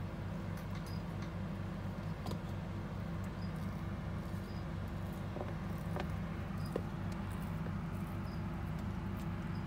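A steady low hum runs throughout, with a few faint clicks and small high-pitched ticks scattered through it.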